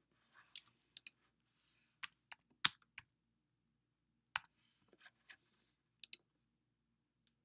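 A computer keyboard's keys tapped one at a time as a short number is typed, mixed with a few clicks: about a dozen separate sharp taps, the loudest near three seconds in.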